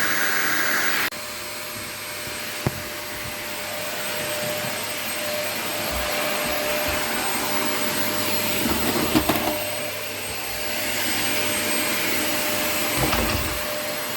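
Vacuum cleaner running steadily; about a second in its sound drops and changes, then it runs on with a few light knocks and bumps.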